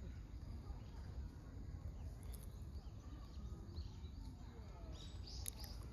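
Birds chirping: short high chirps, scattered at first and coming in a quick run near the end, over a steady low rumble.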